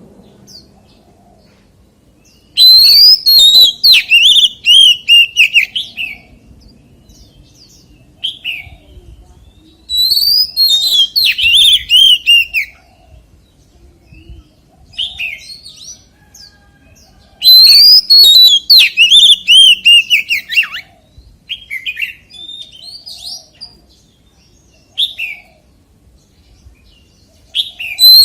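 Oriental magpie-robin singing: three loud bouts of quick, varied whistled phrases a few seconds each, with short single notes and phrases in the gaps between them.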